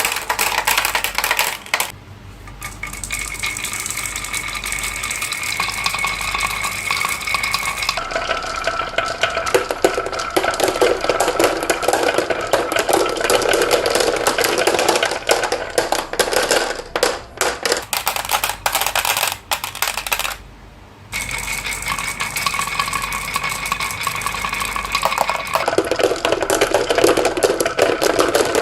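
Many marbles rolling and clacking along a marble run's tracks: a dense, continuous clatter of small clicks with a ringing rolling hum. It breaks off briefly twice, about two seconds in and again about two-thirds of the way through.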